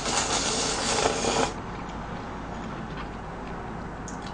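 A person slurping instant cup-ramen noodles, one long slurp that stops about a second and a half in.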